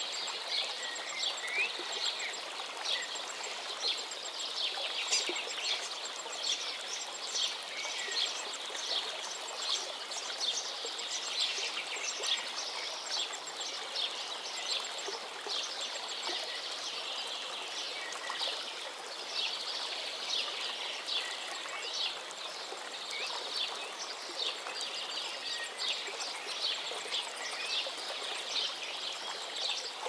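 Stream water rushing and gurgling steadily over rocks, with birds chirping faintly now and then.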